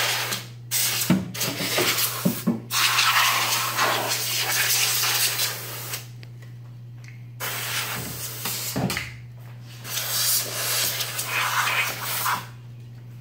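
Can of compressed air hissing in short bursts as it blows dust off the circuit boards inside a CRT monitor. Several quick bursts come first, then one longer spray of about three seconds, a pause of a second or so, and a few more bursts near the end.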